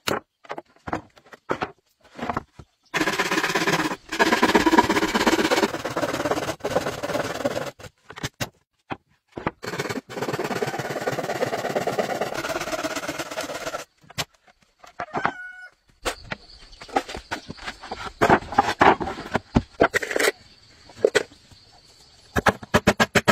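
Rooster crowing, mixed with the rasp of a hand saw cutting through a wooden plank. In the last third the sound turns to a run of sharp knocks and taps on the wood.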